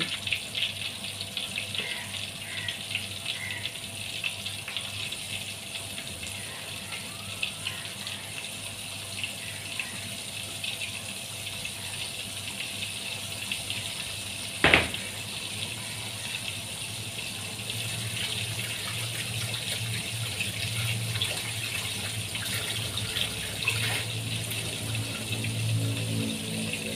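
Flour-coated chicken pieces deep-frying in hot oil in a wok: a dense, steady crackle and sizzle of bubbling oil. A single sharp knock comes about halfway through, and a low hum underneath grows a little louder in the second half.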